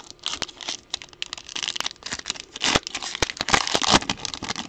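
A trading-card pack's foil wrapper being torn open and crinkled as the cards are pulled out. It makes a run of crackling rustles and sharp clicks, busiest and loudest in the second half.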